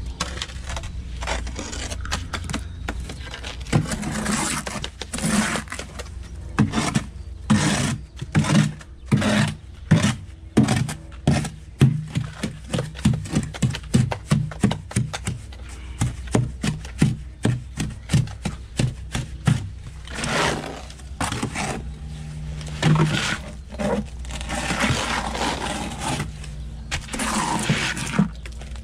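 Steel trowel scraping and slapping cement mortar onto wire mesh on a wall, in quick, irregular repeated strokes.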